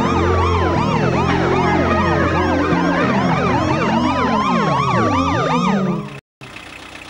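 Many police sirens wailing at once, a dense tangle of overlapping rising and falling glides over a steady low hum. They cut off suddenly about six seconds in, after a short gap of silence.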